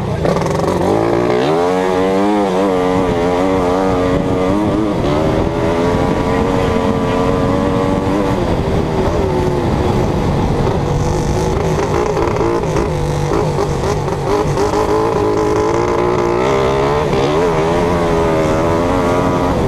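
A racing vehicle's engine running hard. The revs climb about two seconds in, hold steady, drop back around eight seconds, then rise again near the end.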